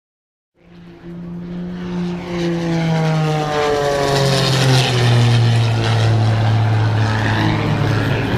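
Red Bull Air Race plane's six-cylinder Lycoming engine and propeller in a low, fast pass, starting abruptly and growing loud. The engine note falls in pitch as the plane goes by, then settles into a lower, steady drone.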